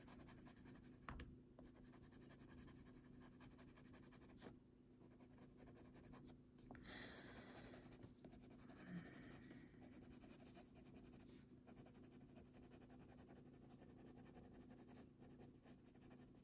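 Faint scratching of a Faber-Castell Polychromos coloured pencil shading on paper, over a low steady hum, with a small click about a second in.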